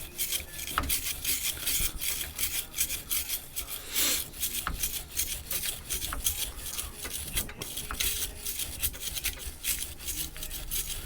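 Brass wire brush scrubbing the extruder nozzle tip of a Prusa 3D printer in quick back-and-forth strokes, a steady run of short scratchy rasps, cleaning leftover plastic off the nozzle.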